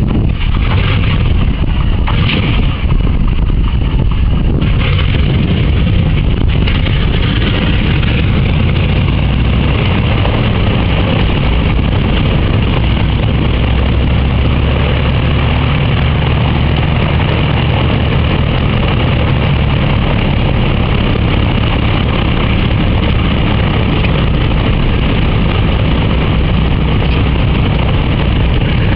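Boeing B-29 Superfortress's Wright R-3350 radial piston engines starting up. Uneven firing in the first few seconds settles into a steady, loud, low running.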